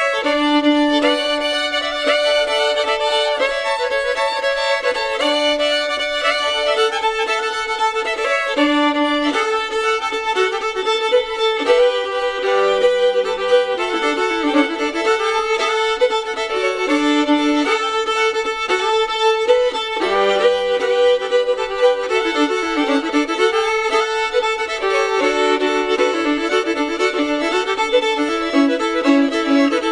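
Background music: a fiddle melody with long held notes.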